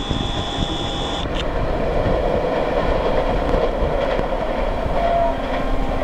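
Gitanjali Superfast Express passing at high speed without stopping, a steady rushing roar of the train going by with scattered clicks of wheels on the rails. A thin high whine cuts off about a second in.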